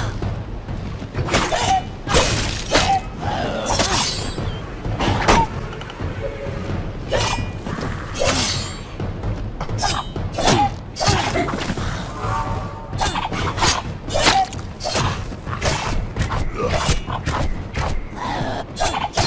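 Video game combat sound effects: a rapid run of weapon hits and shattering magic impacts, with thuds, over background music.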